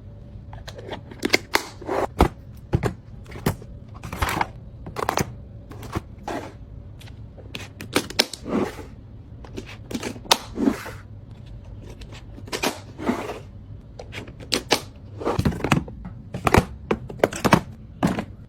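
Containers and food items being handled and set down while restocking a fridge: irregular clicks, taps and short clunks of plastic and glass, a few a second.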